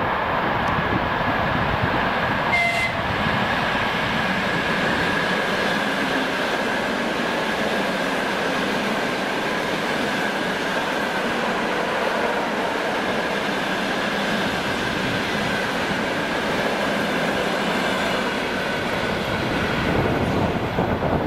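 ED4M DC electric multiple unit passing at speed: a steady rumble and rush of wheels on rail, with a steady high tone running through it. A brief sharp sound comes about two and a half seconds in.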